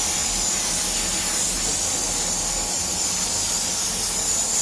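High-pressure water jet spraying onto a wall-mounted air conditioner during cleaning, a steady hiss throughout.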